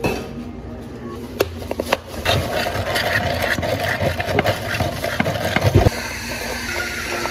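Clear plastic dome lids being pressed down and snapped onto plastic iced-drink cups: a run of crackling clicks and plastic rubbing from about two seconds in, ending in a sharper knock about six seconds in.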